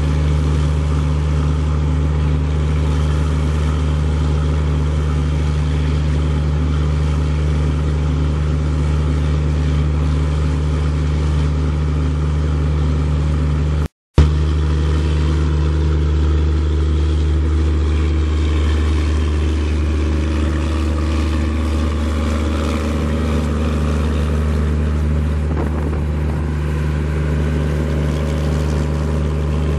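Large diesel engine running steadily at constant speed, a deep even hum with a low throb that does not change. It breaks off for an instant at a cut about 14 seconds in and then carries on unchanged.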